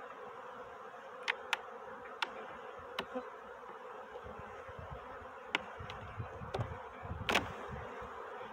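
Honey bees buzzing steadily around an opened hive, with a series of sharp clicks and knocks from a metal hive tool prying at the hive and its queen excluder, the loudest about seven seconds in.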